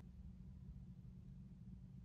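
Near silence: room tone with a faint, steady low hum.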